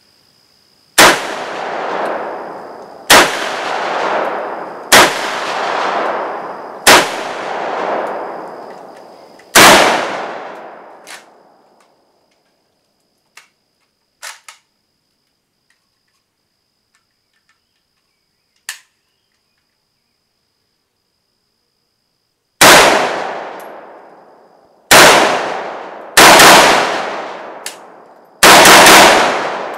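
Home-built AMD-65 AK-pattern rifle in 7.62×39 firing single shots, each followed by a long fading echo. Five shots come about two seconds apart. After a pause of about ten seconds, with a few faint clicks as the rifle is handled, a second string of shots follows, the last ones close together.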